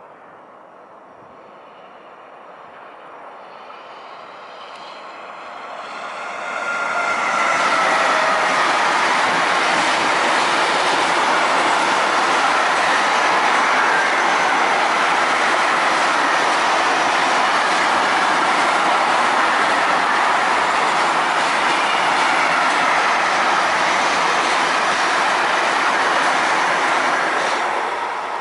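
An electric-hauled intermodal freight train passes close by. Its approach builds over about the first seven seconds, with thin high tones as it nears. Then come a loud, steady rush and rumble of wheels on rail as the long string of container and trailer wagons runs past, easing a little near the end.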